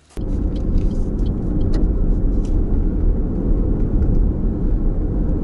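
Steady low rumble of a car's engine and tyres on the highway, heard from inside the cabin, cutting in abruptly just after the start.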